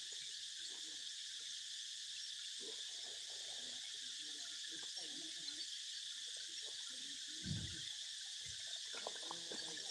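Steady, high-pitched chorus of forest insects droning without a break, with a few soft low knocks, the loudest about seven and a half seconds in.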